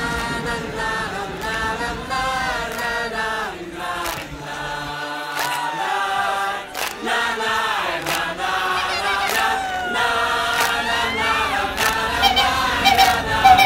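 Music: a choir singing held chords, the voices moving together with a few sliding notes.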